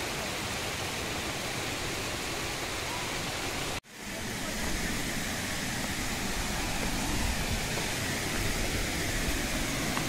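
Steady rush of water from a small waterfall cascading over rocks, an even continuous noise that cuts out for an instant about four seconds in and then returns.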